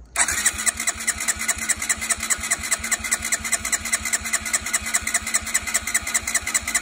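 Honda CB125R's single-cylinder engine being turned over on its electric starter for a compression test, with the gauge in the spark plug hole so it cannot fire. It makes an even, rapid pulsing over a steady starter whine, and the reading climbs to a little over 100 psi.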